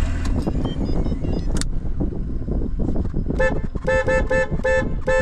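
Car horn tapped in a quick series of short toots, about seven in two seconds, starting past the middle, over the low rumble of the car; light taps meant to signal without honking too loudly.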